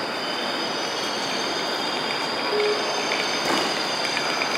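Busy railway station ambience: a steady wash of background noise with a thin, steady high-pitched squeal running over it, the kind rail wheels or brakes give off, and a faint knock about three and a half seconds in.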